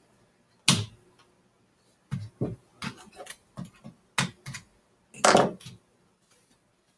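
Computer keyboard and mouse clicking: a dozen or so irregular sharp clicks, with a longer, louder knock a little after five seconds in.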